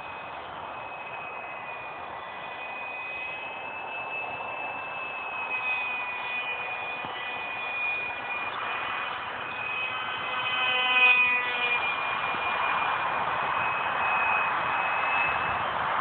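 Micro RC F-22 model plane's small electric motor and propeller whining high and steady in flight, with the pitch wavering slightly. It gets louder briefly about eleven seconds in, and a rushing hiss grows over the second half.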